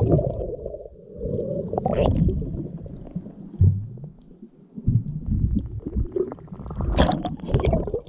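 Muffled underwater sound from a submerged head-mounted action camera: low rumbling and gurgling of water moving around it as the snorkeler swims over the seagrass, with louder, brighter splashy bursts about two seconds in and again near the end.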